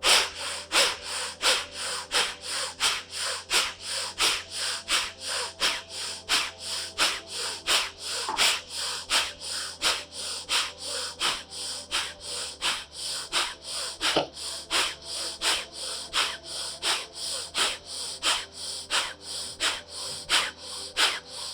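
A person's rapid, forceful exhalations through both nostrils, about three sharp puffs a second kept up at an even pace: the pumping breath of kapalbhati pranayama.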